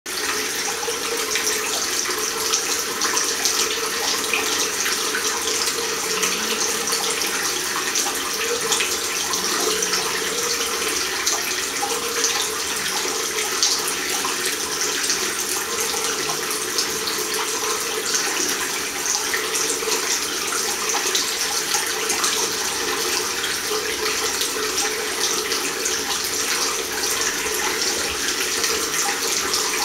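Water from a mixer tap running in a steady stream into a ceramic washbasin and down the open drain: a constant rushing hiss that does not change.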